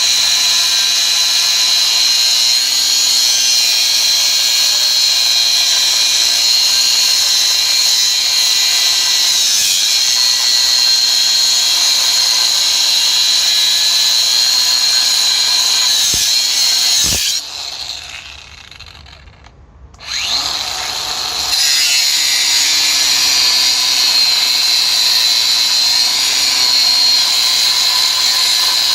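Cordless angle grinder with an abrasive disc cutting into a steel railway rail: a steady, loud, high-pitched grinding. About 17 s in it drops away for roughly three seconds, then picks up again.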